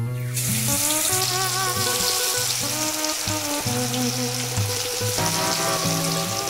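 Marinated chicken pieces deep-frying in hot oil in a kadai. A loud, steady sizzle of bubbling oil starts just after a piece is dropped in. Background music plays underneath.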